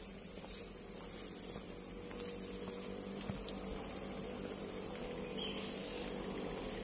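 Steady high-pitched drone of insects, with a faint low hum beneath. In the second half a run of short high chirps, each falling in pitch, repeats about twice a second.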